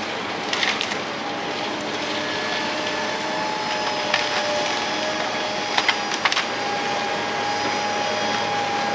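Heavy machinery running steadily with a faint whine, broken by a few sharp cracks of splintering wood, the loudest cluster about six seconds in.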